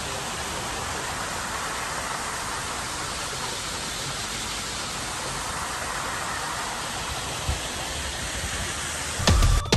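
Steady rushing, water-like hiss from the steaming geothermal hot-spring pool. Music with a heavy beat starts near the end.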